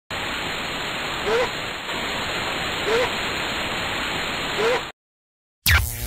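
Television static hiss used as an intro sound effect, with three short rising chirps about a second and a half apart. It cuts off about five seconds in, and after a brief silence a sweeping sound effect starts near the end.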